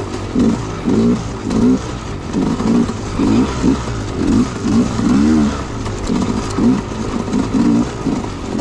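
Dirt bike engine revving up and down in short throttle blips about once a second as the bike is ridden along rough single-track trail.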